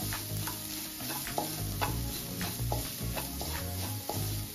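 Wooden spatula stirring and scraping a dry crushed-coconut spice mix around a nonstick frying pan, with a light sizzle from the hot pan; short scraping strokes come about twice a second.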